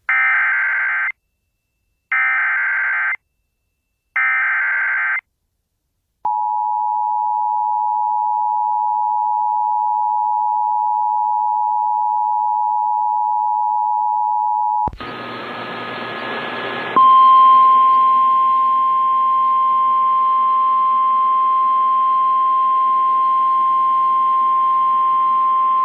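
Emergency Alert System tones. First come three one-second bursts of SAME digital header data, then the EAS attention signal's two-tone chord (853 and 960 Hz) held for about eight and a half seconds. After about two seconds of hiss, the NOAA Weather Radio 1050 Hz single warning tone sounds steadily with a faint hum under it.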